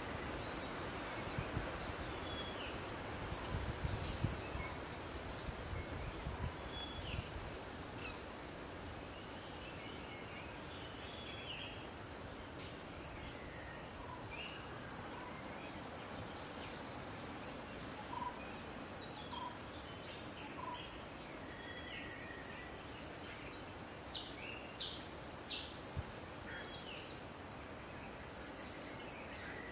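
Wild tropical forest-edge ambience: insects drone steadily at a high pitch, with scattered short bird chirps, more of them in the second half. A few low bumps come about three to seven seconds in.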